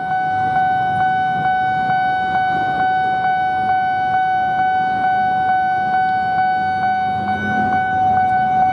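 Railway level-crossing warning alarm sounding: one steady electronic tone with a faint click repeating about twice a second, warning that a train is approaching.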